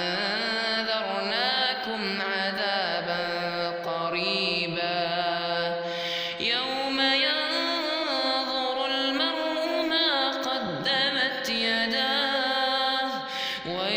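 A man reciting the Quran in melodic tajweed style, drawing out long ornamented notes that bend up and down, with brief breaks between phrases.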